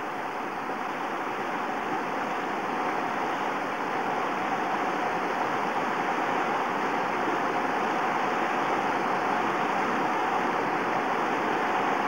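Fast jungle river running through rapids: a steady rush of white water around waders, growing slightly louder over the first few seconds.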